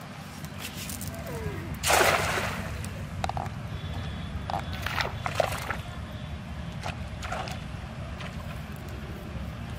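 Cast net hitting the pond surface with one loud splash about two seconds in, followed by a few smaller splashes as it settles and sinks. A steady low rumble runs underneath.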